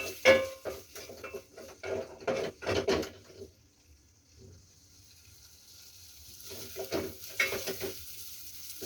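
Chopped onions frying in oil in a metal pot, with a spoon stirring and scraping against the pot in irregular strokes over a faint sizzle. The stirring pauses for a couple of seconds in the middle, then starts again.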